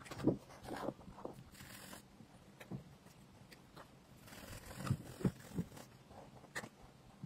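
Acrylic paint marker's nib rubbing and scratching on sketchbook paper as a shape is coloured in, with scattered taps as the pen meets the page.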